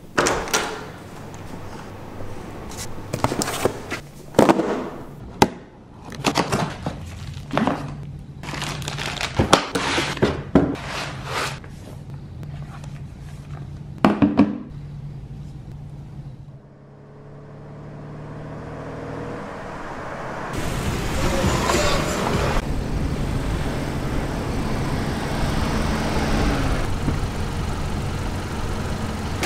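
A string of sharp clicks, knocks and handling sounds over a faint low hum, starting with a door handle and latch being worked. From about two-thirds of the way in, this gives way to the steady noise of a car engine running.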